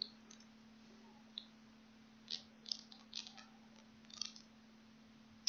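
Faint, irregular clicks of a computer keyboard and mouse during text editing, about six of them spread over a few seconds. A low steady hum runs underneath.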